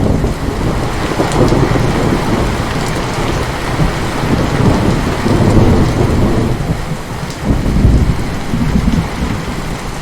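Heavy rain with a long rolling peal of thunder that cracks in suddenly at the start, rumbles low and swells through the middle with a loud surge about eight seconds in, then fades back to steady rainfall near the end.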